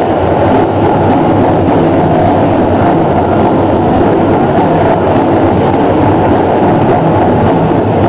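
Powwow drum group performing a side step song: several men singing together while striking one shared big drum. Loud and smeared, with no clearly separate drumbeats standing out.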